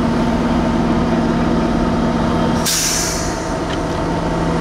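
Fire engine's engine running steadily close by, a loud even hum. About halfway through there is a short hiss, and one of its hum tones stops.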